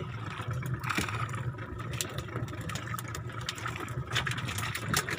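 Boat engine running steadily at low speed, with scattered short, sharp clicks and knocks over it.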